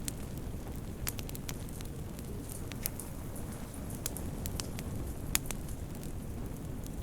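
Wood fire crackling in a fireplace: a steady low rumble of burning with scattered sharp pops and snaps, the loudest about five seconds in.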